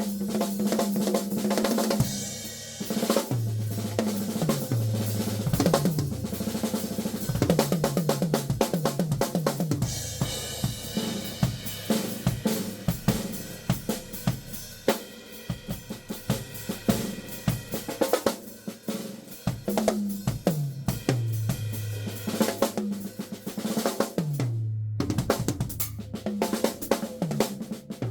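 Yamaha acoustic drum kit played continuously, heard through a phone's built-in microphone: kick, snare, hi-hat and cymbals in dense patterns with descending fills. A short break near the end before the playing starts again.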